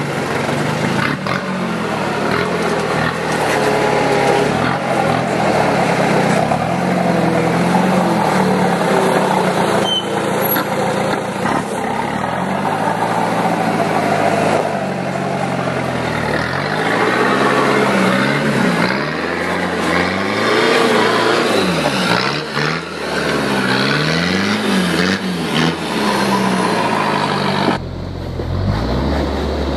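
Toyota Hilux 3.0 turbo diesel engine working at low speed as the truck crawls over rock. The revs rise and fall again and again as the driver feeds throttle over the ledges.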